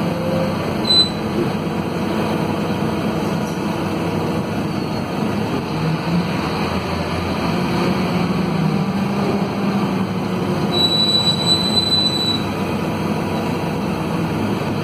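Cabin sound of a Scania K230UB city bus under way: its five-cylinder Scania DC9 diesel runs steadily with a low hum that drifts in pitch. A brief high squeal comes about two-thirds of the way through.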